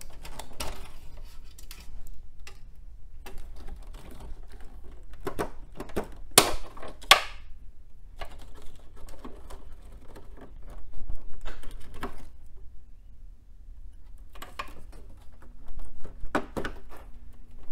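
Power-supply cable connectors being unplugged inside a desktop computer tower: irregular plastic clicks and rattles against the sheet-metal case, with two sharper clicks about six seconds in, less than a second apart.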